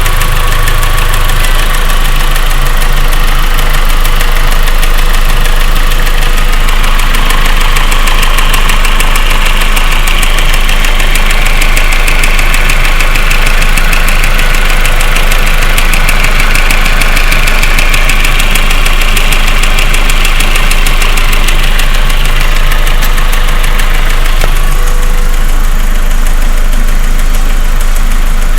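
Audi/VW 1.8T turbocharged four-cylinder engine idling with a fast, even ticking over the engine note, a tick that comes when the engine is cold and goes once it has warmed up.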